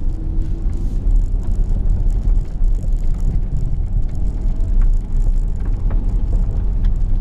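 Inside the cabin of a Porsche Cayenne Turbo driving along an unpaved dirt track: a steady, loud low rumble from the engine and tyres, with occasional small ticks.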